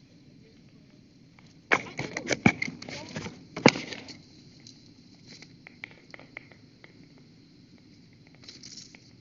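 Close-miked mukbang eating sounds: chewing and wet lip smacking in faint scattered clicks. About two seconds in there is a louder burst of clicking mouth noise lasting about two seconds.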